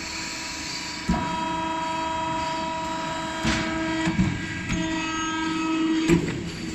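Automatic foam punching machine running a trial cut: a steady mechanical whine of several tones, broken by sharp knocks about a second in, twice around the middle, and loudest near the end.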